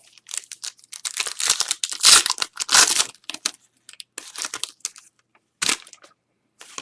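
A trading-card pack wrapper being crinkled and torn open by hand, with a dense stretch of crackling in the first half, loudest around two to three seconds in, then a few short crackles as it is handled.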